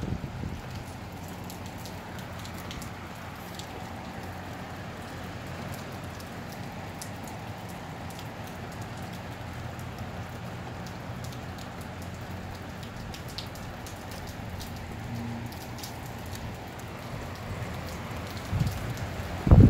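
Steady rain falling, with scattered small drop ticks over an even hiss. Near the end, a couple of louder low thumps.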